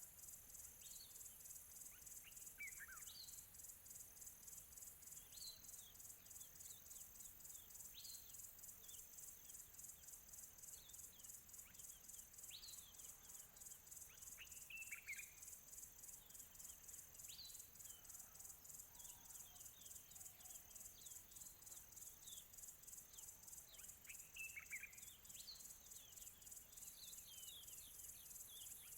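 Faint outdoor nature ambience: a steady, rapidly pulsing high-pitched insect chorus, with short, downward-sweeping bird chirps every second or two.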